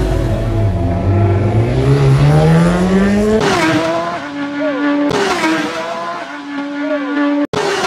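Racing motorcycle engine revving hard, its pitch climbing steadily for about three seconds. Then a race bike at high revs approaches, its pitch stepping down and up again with gear changes, and the sound cuts out for an instant near the end.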